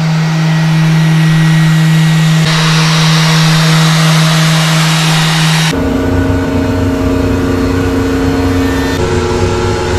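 Random orbital sander with a dust-extraction hose running steadily on an epoxy-and-walnut tabletop: a constant hum with a hiss, the hiss growing brighter a couple of seconds in. About halfway through, the sound cuts abruptly to a different steady machine hum with more low rumble.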